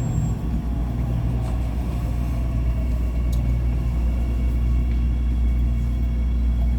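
Ui-Sinseol light rail train running between stations, heard from inside the car: a steady low rumble with a faint higher whine over it.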